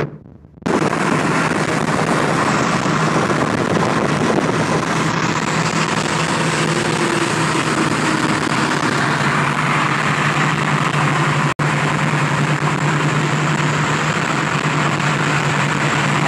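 Heavy wind and road noise in a moving car at highway speed, with a steady engine drone beneath it. The sound starts after a brief silence and cuts out for an instant about two-thirds of the way through.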